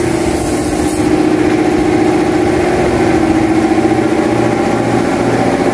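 A machine running steadily and loudly: a constant hum with a low throb that pulses on and off.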